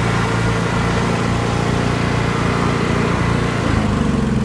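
Engine of a Toro riding lawnmower running steadily. Its note shifts slightly near the end.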